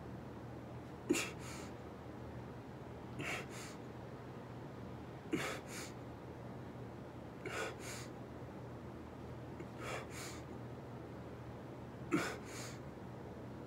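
A man breathing hard through push-ups: a sharp double breath about every two seconds, six times, keeping time with the reps.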